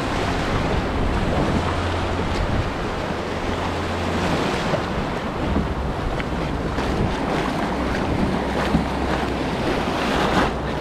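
Shallow ocean surf washing and foaming around a kayak and wading legs, with wind buffeting the microphone.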